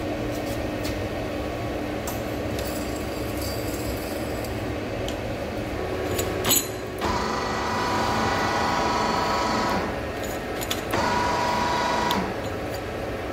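Large LZMT CW6280D lathe running with a big steel tube turning in its steady rest: a steady machine hum, a short knock about six and a half seconds in, then a higher ringing whine for about three seconds and again for about a second near the end.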